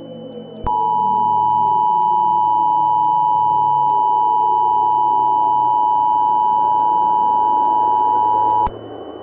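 Emergency Alert System two-tone attention signal: a loud, steady dual tone just under 1 kHz that starts under a second in, holds for about eight seconds and cuts off abruptly. A faint low ambient drone with slowly falling pitches runs beneath it.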